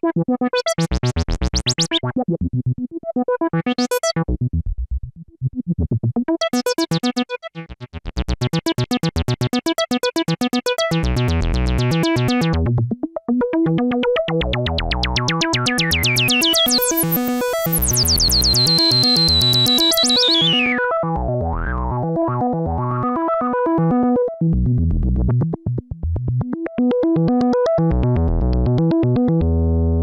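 Minimax virtual Minimoog synthesizer, running on the DinoPark DSP box, played from a keyboard: fast repeated notes with a few short breaks early on. In the middle the filter sweeps open to a very bright peak, then closes down again before the pulsing notes carry on.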